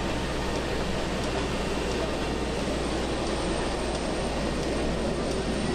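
Steady rumble and hiss of an airport apron beside a parked airliner, from aircraft and ground equipment running, with a constant low hum and no distinct events.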